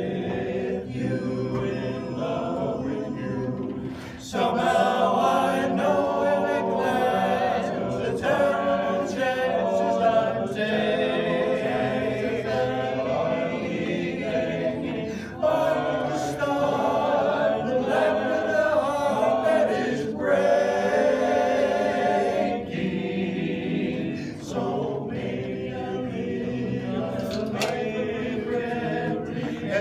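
A small men's chorus singing unaccompanied in close harmony, in phrases that swell louder about four seconds in.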